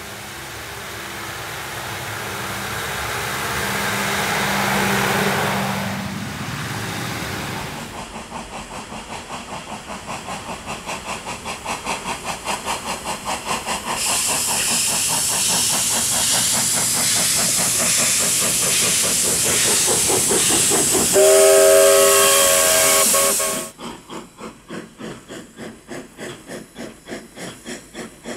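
Steam locomotive working steadily, its exhaust chuffing in an even beat over hissing steam. Near the end a multi-tone chime whistle sounds for about two seconds, then the chuffing goes on more quietly. A rising train rumble fills the first few seconds.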